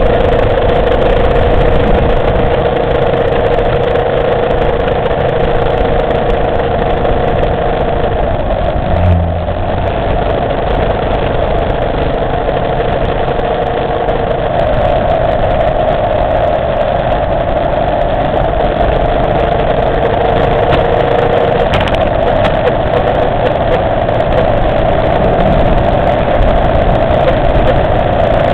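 Motorcycle engine running steadily while riding, heard from the bike itself; its note shifts a few times as the speed changes, with a brief low bump about nine seconds in.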